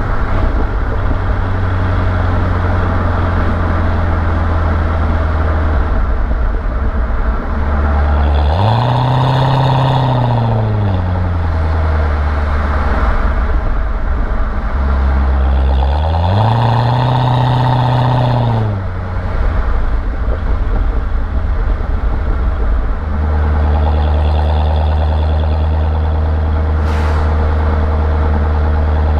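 Chevrolet Corvette C6 V8 idling with a deep, steady note, revved twice in smooth blips that rise and fall back, about eight seconds in and again near sixteen seconds, then settling back to idle.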